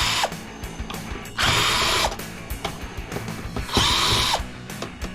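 Power drill-driver backing screws out of a computer power supply's case in short runs of under a second, three in all, its motor whine dropping in pitch as each run stops, with clicks and handling of the metal case between.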